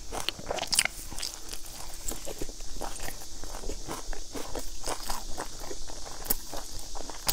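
Close-miked chewing of a crusty, charred flat baked cake: irregular small crunches and clicks, several a second.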